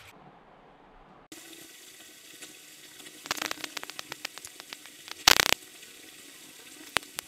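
A thin wooden stick scratching through powdered sugar on a cake's surface while writing letters: a quick run of light scratches and clicks, then a louder brief scrape about five seconds in.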